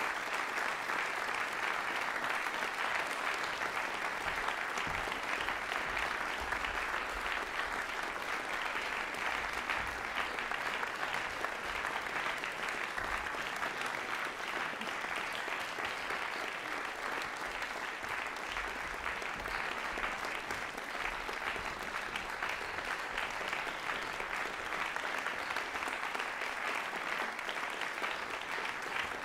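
Sustained applause from a large concert audience, many hands clapping in a dense, steady patter.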